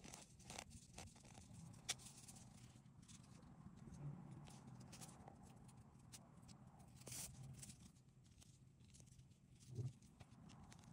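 Near silence: a low steady room hum with a few faint clicks and soft handling sounds of a crochet hook and yarn being worked, and a brief soft low sound near the end.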